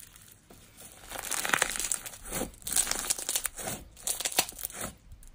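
Crunchy bingsu slime squeezed and pressed by hands, giving several bursts of crackling bubble crunches as the air pockets in the slime pop.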